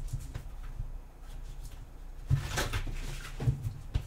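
A deck of tarot cards being shuffled by hand: cards sliding and swishing against each other, with the strongest swish about two and a half seconds in.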